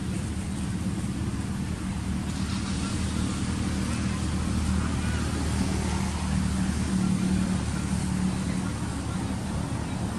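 Steady low engine drone, holding one pitch and swelling a little about seven seconds in.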